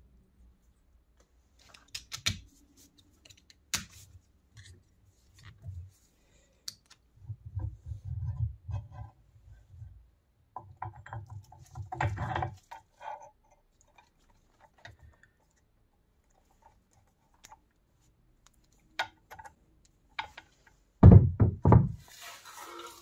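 Cast-iron and steel drill press parts being handled and fitted together on a workbench: scattered metal knocks and clicks, with a couple of stretches of low rumbling and a cluster of loud heavy thumps near the end.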